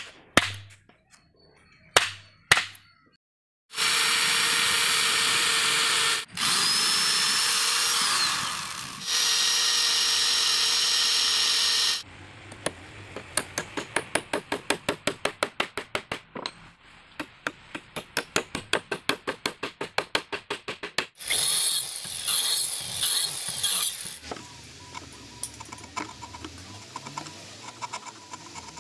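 A few sharp taps of a chisel on wood, then a handheld electric cutter (angle grinder) running for about eight seconds, dipping briefly twice and winding down once. A hammer then drives nails into the wooden frame at about two to three blows a second, and the cutter runs again in short pulses near the end.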